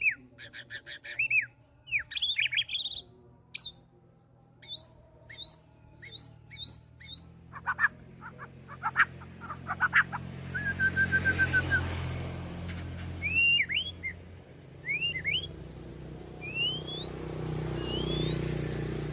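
White-rumped shama singing a varied courtship song: quick runs of repeated notes, a short even trill, and rising slurred whistles, with mimicked fill-in phrases from other birds mixed into the song.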